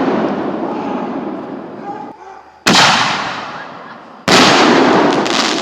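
Fireworks going off: the tail of one blast fading out, then two loud sudden bangs a second and a half apart, each trailing off in a long rumbling echo, with a little crackling near the end.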